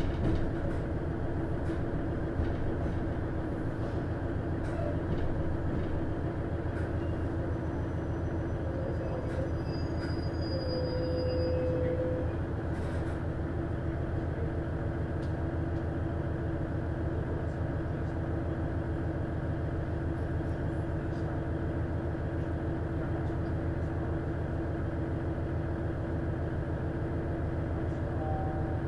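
The DMF14HZA diesel engine of a KiHa 110 series railcar, heard from inside the cabin as a steady low drone with a constant hum, as the car rolls to a stop at a station. A few short squeals come about ten seconds in, while it comes to a stand.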